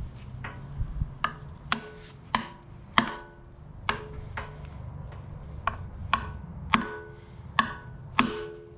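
Hammer blows on metal, about a dozen irregular strikes each ringing briefly, driving a tight-fitting part into place with a driver.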